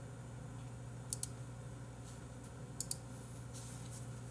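Two pairs of short, faint clicks from computer input at a desk, one about a second in and one near three seconds, over a low steady hum.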